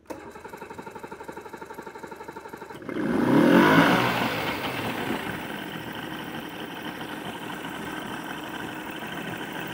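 Evinrude XP two-stroke V6 outboard cranking in a quick even rhythm for about three seconds, then catching with a loud burst of revs and settling into steady running.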